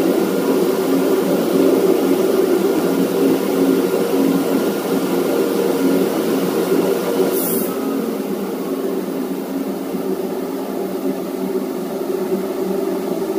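Steady drone of shipboard machinery, a hum of several low tones, easing slightly after the middle. A brief high hiss comes about seven and a half seconds in.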